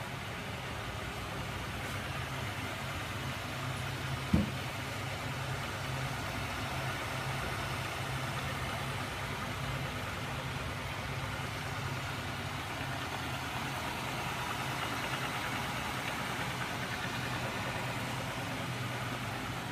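Homemade magnet engine rig running steadily, its small 12 V electric drive motor spinning the flywheel and crankshaft with a constant low hum and whir. A single sharp thump about four seconds in.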